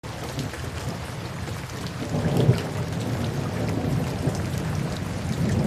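Steady rain with a low rumble of thunder, starting abruptly; the rumble swells about two and a half seconds in.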